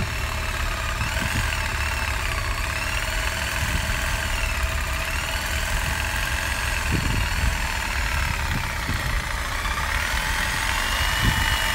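Corded jigsaw cutting through 2-by-2-inch aluminum square tube, its motor running steadily under load with its pitch wandering slightly, and a few short knocks along the way.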